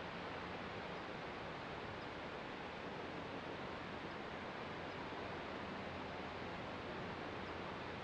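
Steady wash of distant ocean surf, heard as an even hiss with no single wave breaking out above the rest.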